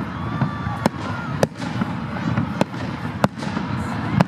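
Fireworks display: aerial shells bursting with about five sharp bangs, spaced irregularly, over a steady low rumble, with a few faint whistles in the first second and a half.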